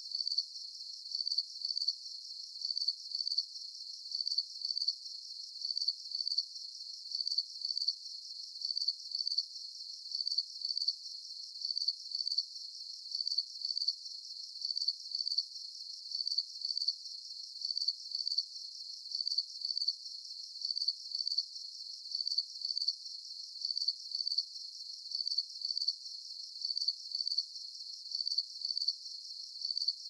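Crickets chirping: short high-pitched chirps repeating in a steady, even rhythm, about one and a half a second.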